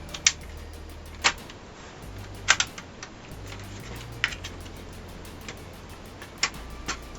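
Sharp plastic clicks and knocks from a ThinkPad T30 laptop's case parts as a part is pulled and pried but won't come out, still held by a hidden screw. There are about seven clicks at irregular intervals, with the loudest near the start and about two and a half seconds in.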